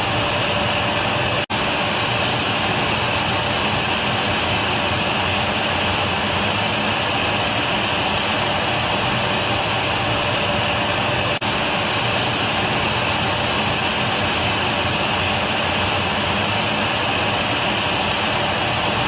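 Vacuum cleaner running steadily, an even rushing noise with a hissing edge and a faint steady hum. It cuts out for an instant twice, about a second and a half in and again about eleven seconds in.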